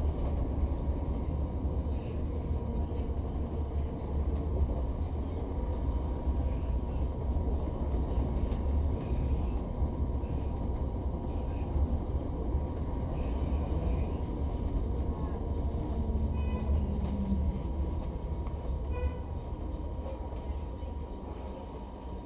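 Steady low rumble of a double-decker bus in motion, heard from inside, with engine and road noise and a faint steady high whine.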